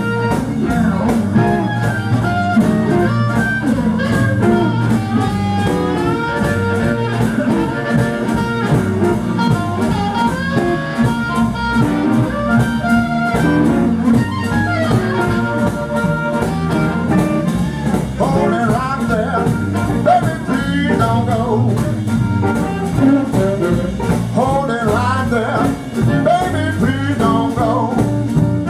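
Live blues band with amplified harmonicas cupped to microphones playing bending, sliding melodic lines over a drum kit and upright bass.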